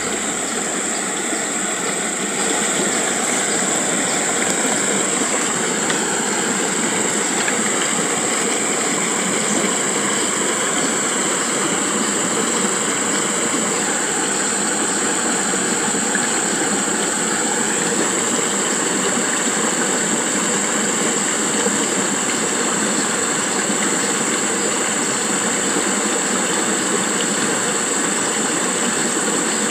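Steady outdoor noise: a continuous rushing hiss with a constant high-pitched drone, which gets a little louder about two seconds in.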